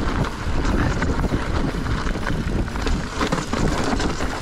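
Electric mountain bike rolling over a dirt trail: a steady low rumble with many small clicks and rattles, and wind buffeting the microphone.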